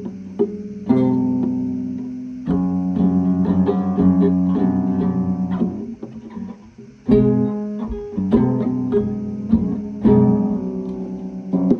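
Background music played on a plucked guitar, with picked notes and strummed chords.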